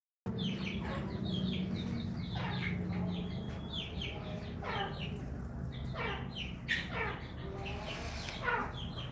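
Chickens calling: short downward-sliding calls repeated about once a second, over a low steady hum.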